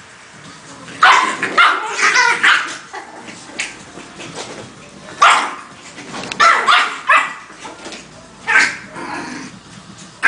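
Yorkshire terriers barking and yipping in play, in clusters of sharp barks with short pauses between.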